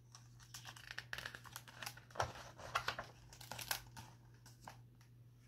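Pages of a hardcover picture book being handled and turned: a run of papery rustles and crinkles, loudest around two to four seconds in, then dying away.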